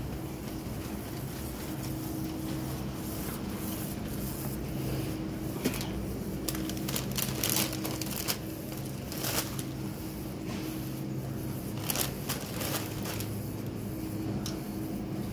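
Shopping cart pushed along a supermarket aisle over a steady low store hum, with scattered rattles and rustles, busiest from about five to nine seconds in and again around twelve seconds.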